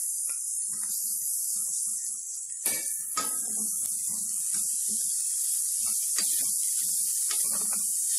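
Diced potato, onion, garlic and grated carrot frying in hot oil in a pot: a steady sizzling hiss, with the scrape and bump of a silicone spatula stirring them and two sharp knocks against the pot about three seconds in.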